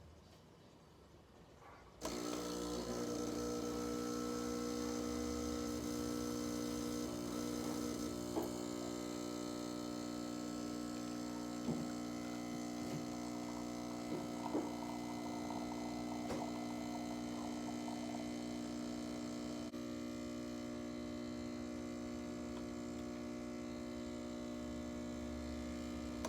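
Espresso machine's pump humming steadily as a shot is pulled, starting suddenly about two seconds in and cutting off near the end, with a few faint clicks along the way.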